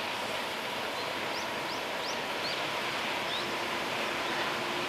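Steady rushing noise of an approaching container freight train hauled by a JR Freight EF200 electric locomotive, with a faint steady whine. A small bird gives a run of five or six short rising chirps in the first few seconds.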